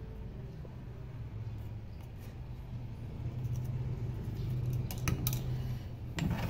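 Screwdriver scraping and clicking against a motorcycle's aluminium cylinder head as old silicone sealant is cleaned off its gasket faces, with a few sharper metallic clicks about five seconds in and near the end. A steady low hum runs underneath.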